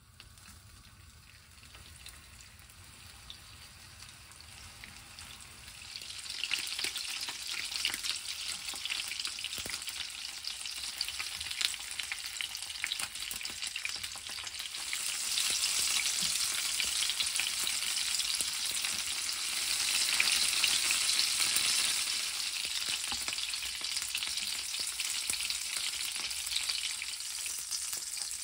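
Meat-stuffed baby capsicum halves frying in oil in a non-stick pan: a sizzle with crackling and spitting that starts faint, grows louder about six seconds in and louder again around fifteen seconds in.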